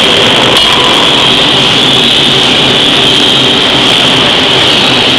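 Loud, steady hissing machine din from a large forging hammer working a glowing steel billet, with two faint knocks in the first second.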